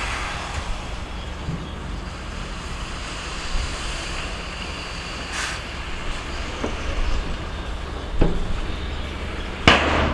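Heavy diesel earthmoving machinery running steadily, with a low engine drone and several sharp metallic clanks and knocks, the loudest near the end.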